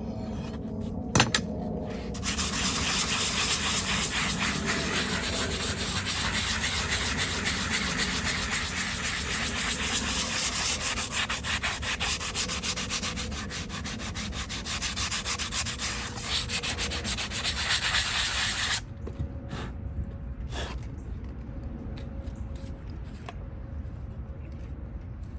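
A hoof wall being filed down with an abrasive, a steady dense scraping that starts about two seconds in, after a single sharp click. It cuts off abruptly near the end, leaving only a few faint taps.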